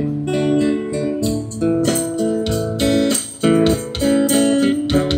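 Instrumental background music: a melody of short, evenly stepping notes with a plucked-guitar sound.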